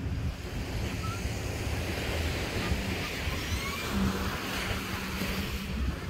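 Surf washing onto a sandy beach, with wind buffeting the microphone, plus a low steady hum that comes and goes.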